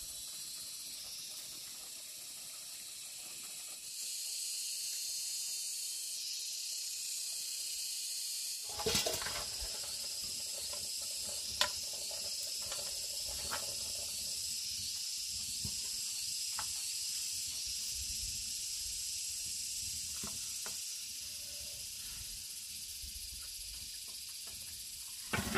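Steady high-pitched drone of insects, growing louder about four seconds in and easing near the end. A short cluster of knocks falls about a third of the way in, followed by a sharp click and a few scattered taps.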